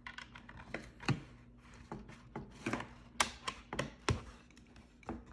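Irregular clicks, taps and knocks of hard plastic pistol accessories being handled, about a dozen, with the loudest knocks a little after three seconds and just after four seconds in.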